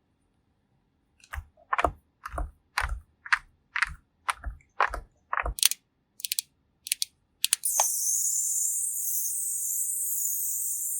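A run of crisp taps and clicks, about two a second, like typing on a keyboard. Near the end they give way to a steady, high hiss.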